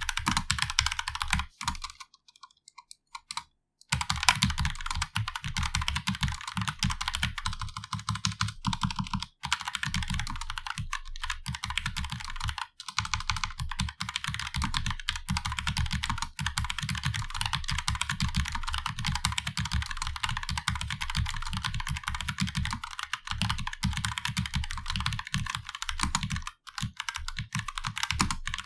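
Fast continuous typing on a wireless mechanical keyboard with TTC Brown tactile switches and round typewriter-style keycaps, a dense run of key clacks that stops for a couple of seconds about two seconds in, then carries on with only brief pauses.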